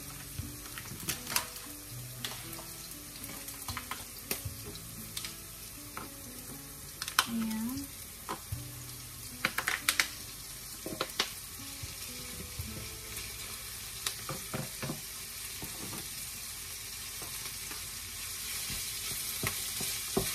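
Minced meat sizzling as it is tipped into a hot nonstick frying pan of sautéed onion and garlic and stirred, with a steady frying hiss and frequent clacks of a wooden spatula against the pan.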